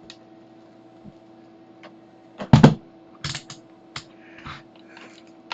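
Scattered clicks, taps and short rustles of hands working on the disassembled Commodore 1541 disk drive and unplugging its connectors, loudest as a couple of knocks about halfway through, over a faint steady electrical hum.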